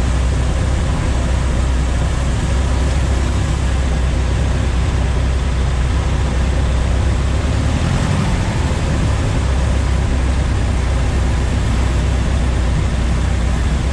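Cub light aircraft's piston engine and propeller running steadily in flight, heard from inside the cockpit as a loud, even drone mixed with wind noise.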